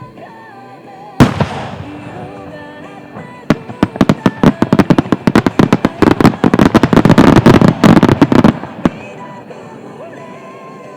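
Aerial fireworks over background music: one loud boom about a second in, then a dense run of rapid bangs and crackles for about five seconds, ending with a single last bang.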